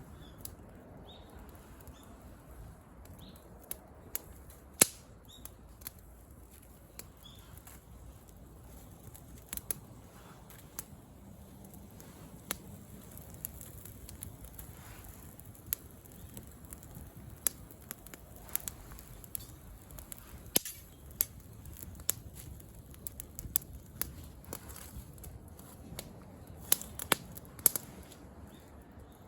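Wood campfire crackling, with irregular sharp pops over a low steady background.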